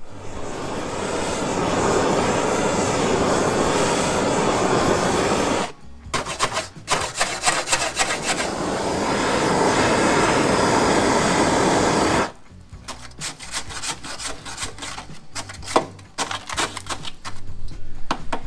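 Handheld gas torch flame hissing steadily against rusted body steel, in two long stretches split by a spell of clicks about six seconds in. The last six seconds are a run of rapid scraping and tapping on the metal.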